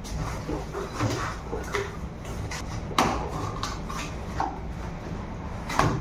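Cardboard packaging being handled: the box's cardboard insert scraping and rustling as it is lifted out, with sharp knocks against the box, the loudest about three seconds in and another near the end.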